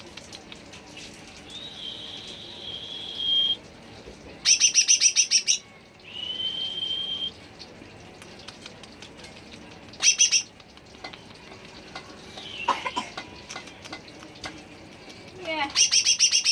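Green leafbird (cucak ijo) singing: long steady high whistles, broken by three loud, fast rattling trills.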